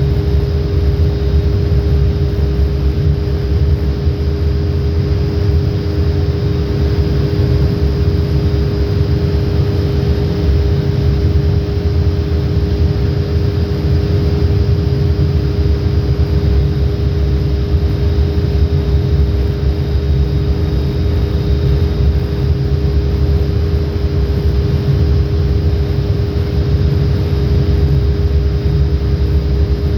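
Steady drone of shipboard machinery: a heavy low rumble with a constant hum on top, unchanging throughout.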